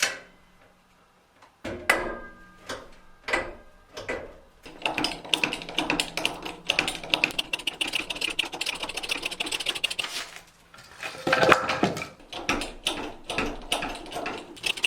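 A few separate knocks with a ringing tail, then a long run of rapid clicks, several a second, with a short break about ten seconds in: a jack being worked to lift a heavy fireplace firebox.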